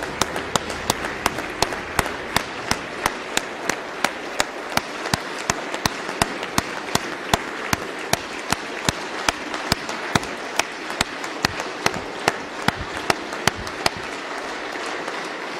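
A large audience applauding: a steady wash of clapping with a unison rhythmic clap about three times a second running through it, the beat dying out near the end.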